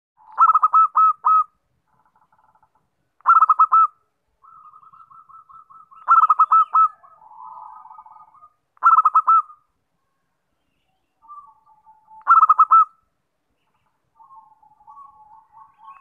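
Zebra dove singing: five loud, short phrases of quick cooing notes, about one every three seconds, with softer trilled cooing between them.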